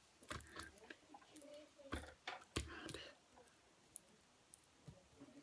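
A quiet room with a few soft clicks and knocks, three stronger ones in the first three seconds, and faint snatches of a woman's voice.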